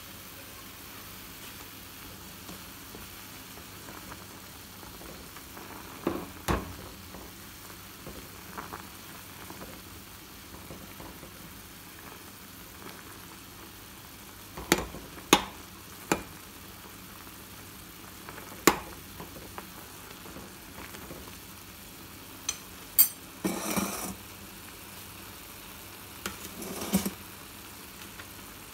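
A pot of instant noodles at a rolling boil, giving a steady bubbling hiss. A metal ladle stirs them, clinking sharply against the aluminium pot several times from about six seconds in, with a couple of short scrapes near the end.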